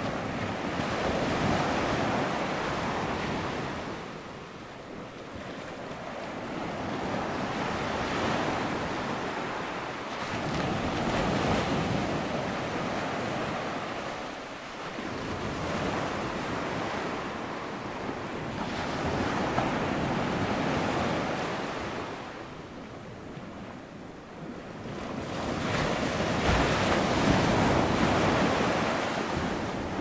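Ocean surf: waves breaking and washing up the shore in a continuous hiss that swells and fades in slow surges several seconds apart.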